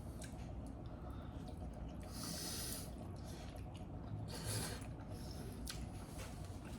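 Eating sounds at the ramen bowl: two short, airy slurps of noodles or broth, about two seconds in and again about four and a half seconds in, with a few small clicks.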